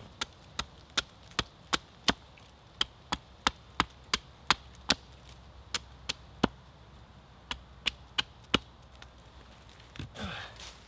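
Hand axe striking an upright stick held against a wooden chopping log: a quick, even run of sharp blows, about three a second, for roughly five seconds, then several slower, spaced blows.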